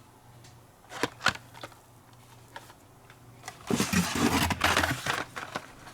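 Carded Hot Wheels die-cast cars being handled: a couple of light clicks about a second in, then about a second and a half of loud rustling and clattering of cardboard-and-plastic blister packaging, over a faint low hum.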